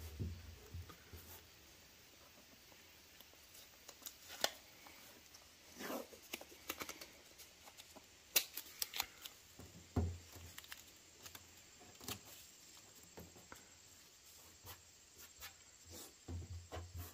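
Faint, scattered ticks and rustles of tape being pulled from the roll, handled and pressed down to hold an emblem on a truck fender.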